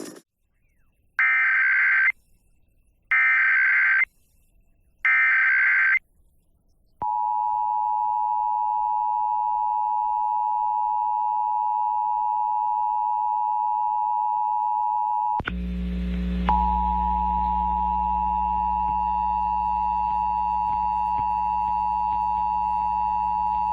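Emergency Alert System broadcast tones: three short bursts of the digital SAME header data, then the steady two-tone attention signal. A low hum joins the attention signal about halfway through.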